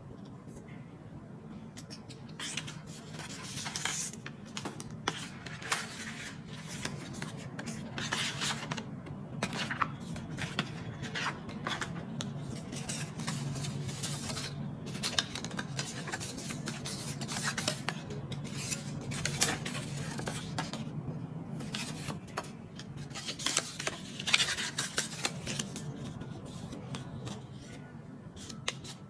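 Paper and card rustling and scraping in irregular bursts as hands shuffle and handle the bag's paper inserts and cards.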